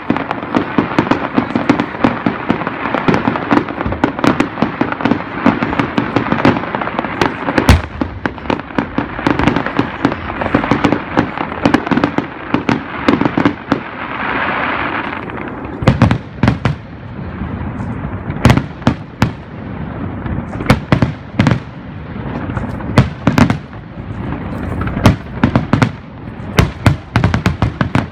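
Aerial fireworks display: a dense run of crackling and bangs, a rush of hissing about halfway through, then many separate sharp booms of shells bursting, sometimes several close together.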